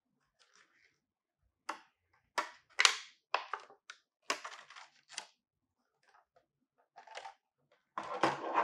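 Clear plastic blister packaging crackling and clicking as it is handled, in a string of sharp crackles in two spells, the loudest about three seconds in and again near the end.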